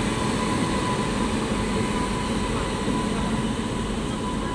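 Indian Railways locomotive rolling past along a station platform: a steady rumble of the train in motion with a constant high hum running through it.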